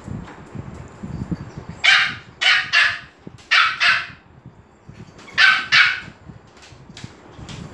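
Dog barking excitedly: about seven sharp, high-pitched barks in three quick bursts, with low scuffling between them.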